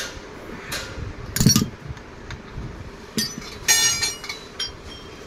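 Metal hand tools knocking and clinking on a car AC compressor's clutch: one heavy knock about a second and a half in, then a few sharper metallic clinks with a brief ringing note a little later.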